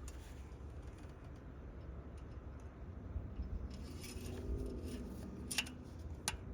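Steady low rumble with a few light clicks and taps near the end, typical of handling tools or parts.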